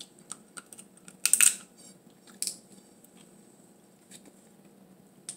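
Eating boiled blue crab by hand: scattered sharp cracks and clicks of shell being broken and picked apart. The loudest cluster comes about a second and a half in, with another crack near the middle.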